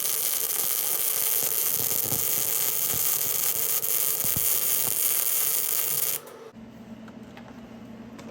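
Arc of a 110-volt wire-feed welder laying a bead on 1/8-inch flat steel with a pulling technique, with a steady crackling hiss. It stops suddenly about six seconds in, when the trigger is released.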